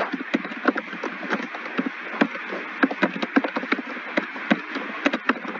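Computer keyboard being typed on: irregular key clicks, several a second, over a steady background hiss.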